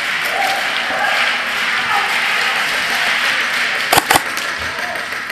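Steady background din of an indoor airsoft arena with faint distant voices, broken about four seconds in by two sharp airsoft shots a fifth of a second apart.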